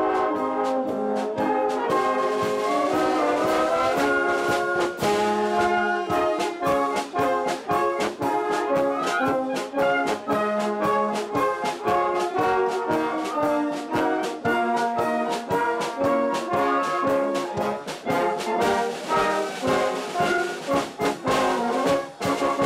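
Wind band of brass and woodwinds (tubas, trombones, trumpets, clarinets, saxophones, flutes) playing a tune with a steady drum beat. The music cuts off suddenly at the end.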